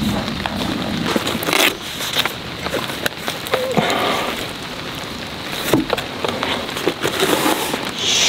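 Steady patter of rain with scattered clicks and knocks as a leather carry case is opened and printed pint glasses are lifted out of it.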